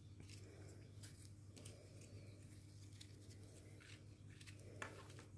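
Near silence: faint rustling and a few light clicks of paper pieces being handled on a worktable, over a low steady hum.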